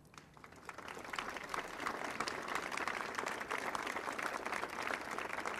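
Crowd applauding: dense hand-clapping that builds over the first second or two, then holds steady.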